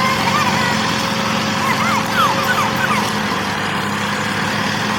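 Small motor of a model tractor running with a steady hum. A few short chirps rise and fall over it in the first half.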